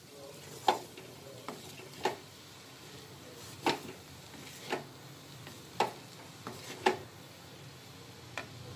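Flat spatula stir-frying noodles in a metal kadhai, knocking and scraping against the pan about once a second, irregularly, over a faint steady sizzle.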